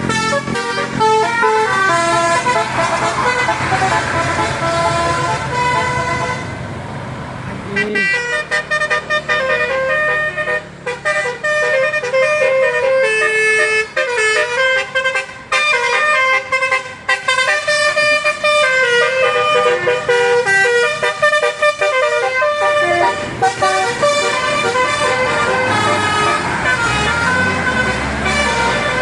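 Bus telolet horn, a multi-tone musical air horn, playing a quick tune of changing notes, with a vehicle engine running underneath for the first eight seconds or so.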